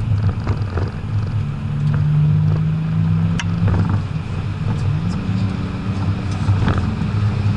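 BMW 535d's twin-turbo straight-six diesel running under load, heard inside the cabin as a steady low drone; its pitch holds for a few seconds, then rises about two-thirds of the way through.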